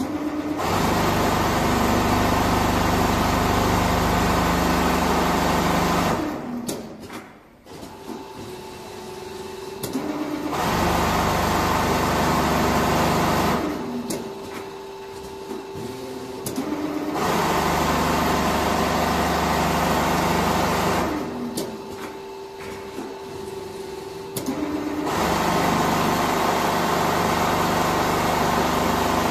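Four-head CNC sewing machine stitching quilting lines through fiber-filled jacket panels. It sews in four runs of a few seconds each. Between runs there are pauses of three to four seconds, where only a lower steady hum and a few clicks remain.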